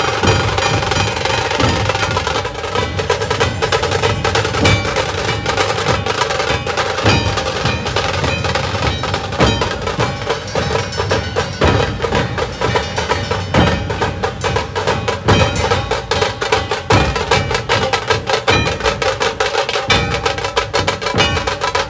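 Dhol-tasha pathak drumming: big barrel dhols with tasha drums playing a fast, dense rhythm of rapid strokes, loud and unbroken, with the strokes sharper in the second half.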